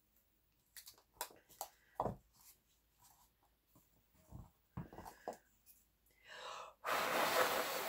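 A hard blow of breath onto wet acrylic paint near the end, a hissing rush lasting about a second after a softer breath, blown too hard to push the paint outward into a bloom. Before it, a few small taps and knocks of the canvas being handled.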